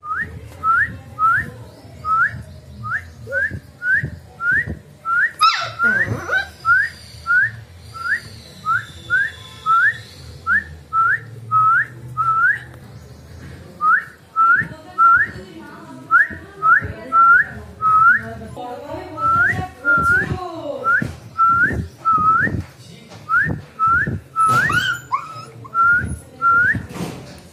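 Golden retriever puppy whining over and over, short high rising whines about two a second, as it hesitates on the stairs wanting to be carried down.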